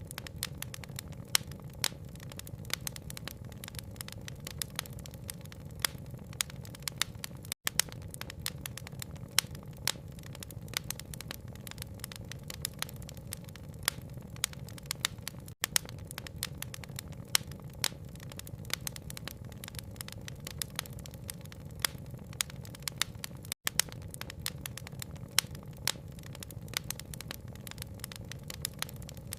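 Wood fire crackling with frequent sharp pops over a steady low rumble. The sound cuts out for an instant three times, about every eight seconds, at the seams of a looped recording.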